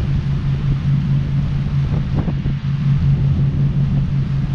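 Tour boat's engine running steadily at cruising speed, a constant low drone, with the rush of the wake along the hull and wind on the microphone.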